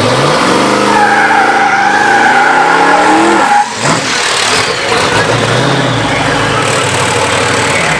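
Twin-turbo LS V8 in an Oldsmobile 442 revving hard, its pitch climbing for about three seconds under a high, steady squeal. The sound breaks off abruptly, and the engine is then heard running lower and rougher.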